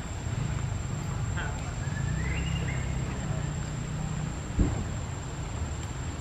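Outdoor background of a low rumble with faint human voices and a steady high-pitched whine, broken by one sharp knock about four and a half seconds in.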